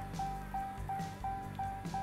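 Dodge Ram dashboard warning chime sounding about three times a second, the usual sign of the ignition on with the driver's door open. Under it the power-folding side mirror's motor runs as the mirror swings back out.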